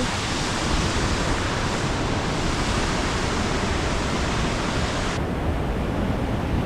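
Waterfall: a steady, loud rush of falling water. About five seconds in, the highest hiss drops away abruptly while the rush goes on.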